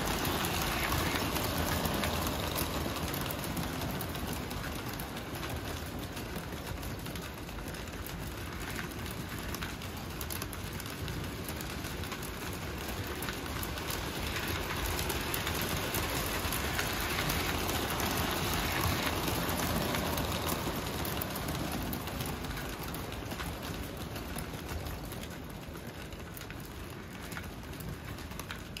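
Lionel 726 Berkshire toy steam locomotives running double-headed with their freight cars on three-rail tubular steel track: a steady clattering rumble of metal wheels on the rails and the engines' motors. It swells as the locomotives pass at the start and again midway, then eases near the end.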